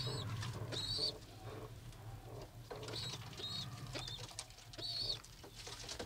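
Domestic pigeons cooing low in a loft, with short high chirps about five times.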